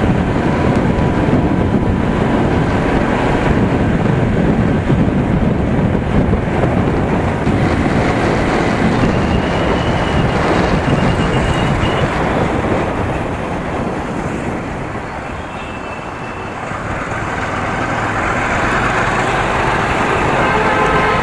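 Wind buffeting the microphone of a helmet-mounted action camera on a moving motorcycle: a loud, rough rush, with the bike's engine and road noise underneath. It eases for a couple of seconds about three-quarters of the way through.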